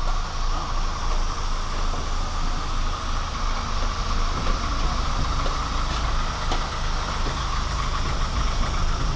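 Steady mechanical drone with a low rumble, and a few faint clicks around the middle.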